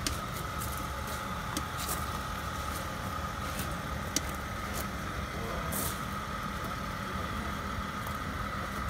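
Steady hiss and hum of live steam locomotives steaming up, with a constant whine and a few short clicks and puffs, one longer hiss about six seconds in.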